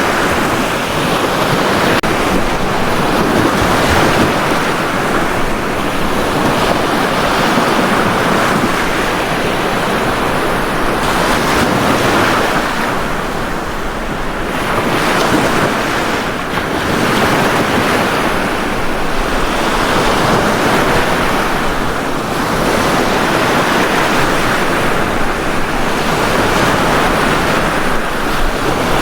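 Ocean waves breaking and washing on a beach in a continuous surf, swelling and easing every few seconds.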